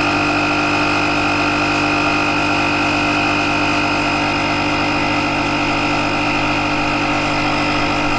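Built-in air compressor of a CAT Professional Power Station CJ1000DXT running steadily and a bit noisily, pumping up a car tyre that is just short of its 32 psi target.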